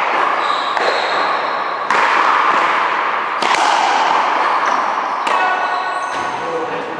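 Racquetball rally on a one-wall court: the hollow rubber ball cracking off racquets and the wall, four or five sharp hits a second or two apart, each echoing in the hall, with brief high squeaks near the middle and end.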